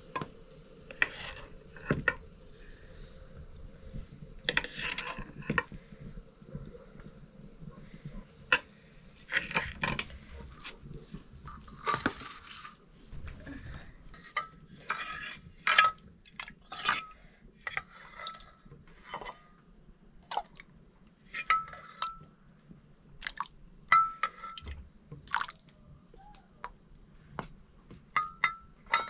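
Steel plates, pots and serving utensils clinking, scraping and knocking together as rice and dal are dished up. About halfway through the knocks turn into short, ringing metal clinks, the ladle and spoon striking the steel plates and the pressure-cooker pot.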